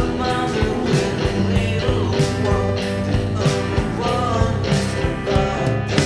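Power-pop rock song playing: a full band over a steady drum beat.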